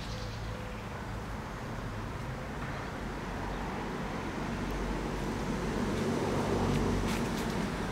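Steady hum of road traffic. A vehicle passing swells in from about halfway through, is loudest near the end, then begins to fade.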